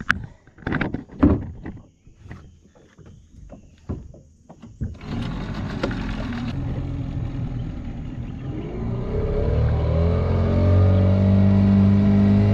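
A few knocks and clatter, then a small Tohatsu outboard motor starts about five seconds in and runs steadily. From about eight seconds in it is throttled up, its pitch rising as the boat gets under way, and it runs loud and steady near the end.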